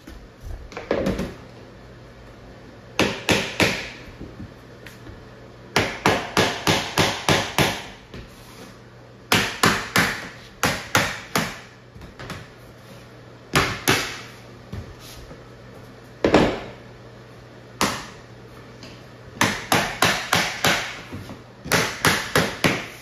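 Hammer tapping a vinyl plank into place to lock its joint, in runs of quick light blows, up to about eight in a row, with short pauses between runs.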